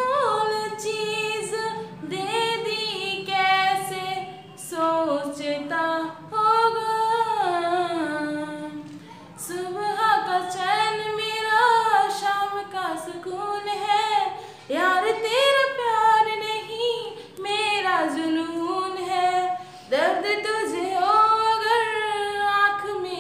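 A woman singing a Bollywood song unaccompanied, in long held notes that waver and slide in pitch, with short breaks between phrases.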